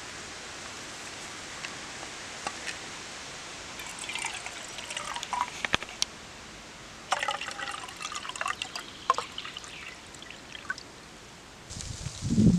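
Water poured from a plastic bottle into a steel cup, splashing and trickling in two pours about four and seven seconds in. Low bumps of handling noise near the end.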